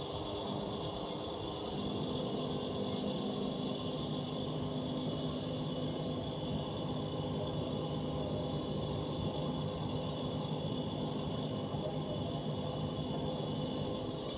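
Fuel dispenser pumping petrol into a motorcycle's tank: a steady hum with an even hiss of flowing fuel. The deeper hum comes in about two seconds in and eases off near the end.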